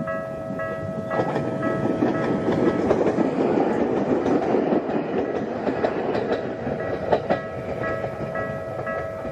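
Ueda Electric Railway Bessho Line electric train passing over a level crossing, its wheels clicking over the rail joints. The crossing's warning bell rings in a steady repeating ding, about two and a half strikes a second; the train drowns it out from about a second in until about seven seconds in.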